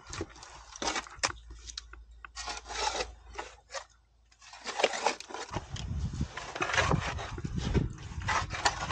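Irregular scraping and rubbing strokes as caked wet mud is scraped off machinery by hand, with a short pause midway. A low rumble joins in during the second half.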